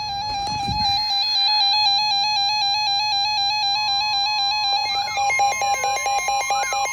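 Electronic alert tones: a steady tone, joined about four seconds in by the weather radio's higher steady warning alarm tone, then by rising-and-falling siren-like sweeps with rapid pulsing. These tones signal that a severe thunderstorm warning is about to be broadcast.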